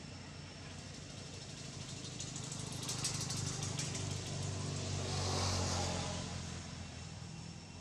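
A motor vehicle passing by, its engine and road noise swelling from about two seconds in to a peak near five and a half seconds, then fading, over a steady low hum.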